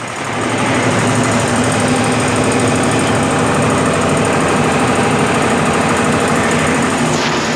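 Brastemp BWL11 11 kg washing machine spinning a load of rugs, running loud and steady after a brief dip at the start, with a hum and a fast rattling knock. It is a strange noise, like iron knocking.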